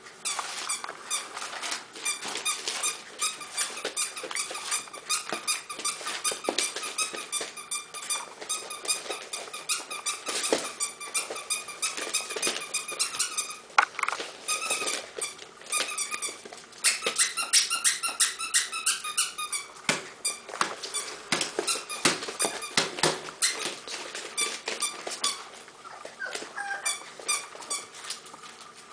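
Five-week-old boxer puppies squealing and whining: nearly continuous, rapid, high-pitched squeaks, with a couple of short lulls.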